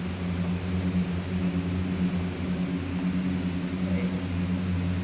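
Steady low electrical hum with a faint whir from running machinery.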